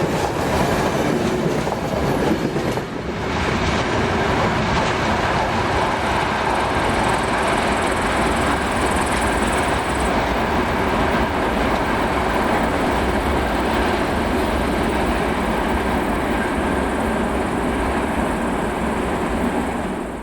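Loaded freight train rolling past at speed, its wagon wheels clattering steadily on the track.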